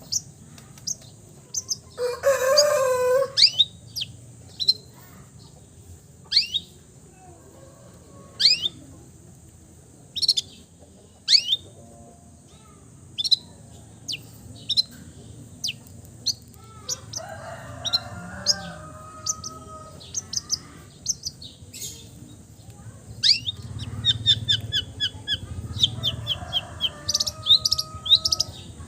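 Long-tailed shrike (cendet) singing: scattered sharp, downward-sliding whistled notes, with a louder, harsher wavering call about two seconds in. Near the end come fast runs of repeated notes, part of its mimicked repertoire.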